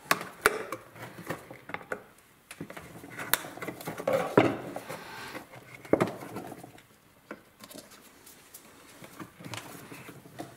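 Small metal can with a red plastic spout cap being pried and twisted open by gloved hands: scattered clicks, light metal scrapes and handling noise, with a few sharper knocks.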